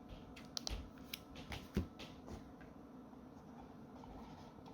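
Cardboard packaging and booster packs being handled: a few light clicks and taps in the first couple of seconds, then only a faint steady hum.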